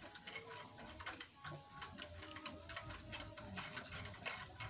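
Faint, irregular clicking and light metallic tapping from hands handling parts on a small water-pump engine, several clicks a second.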